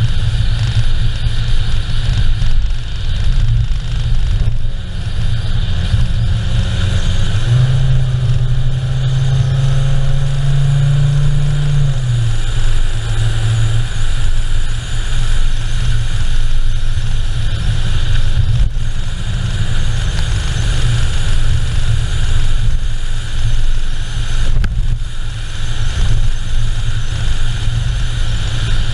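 A car driving on an open road: a steady, loud low rumble of engine and tyres with noise of air rushing past. A steadier, slightly higher engine note holds for a few seconds about a quarter of the way in, then drops back.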